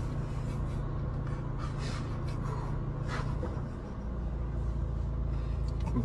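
Low, steady rumble of a car heard from inside its cabin, dropping lower about halfway through, with a few faint rustles or breaths over it.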